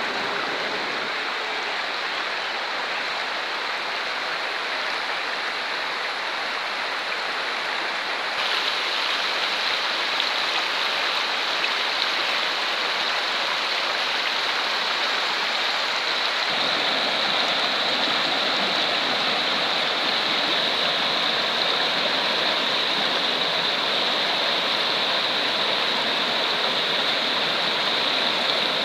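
Shallow rocky river rushing and splashing over stones in a steady flow. The sound shifts slightly twice, about eight and sixteen seconds in.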